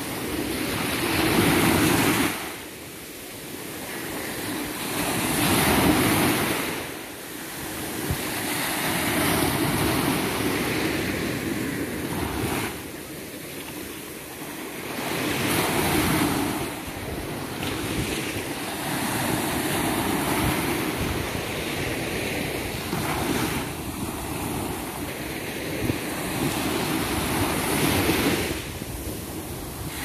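Small sea waves breaking and washing up a sandy beach, the surf swelling and fading every few seconds.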